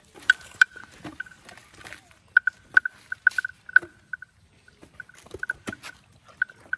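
Wooden bell hanging at an elephant's neck clonking irregularly as the animal moves its head, with short hollow knocks at one pitch and a few sharper clicks.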